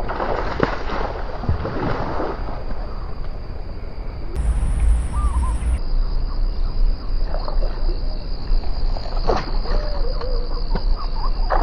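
Wind buffeting the microphone, heaviest about four to six seconds in, over a steady high insect drone and a few short chirping calls.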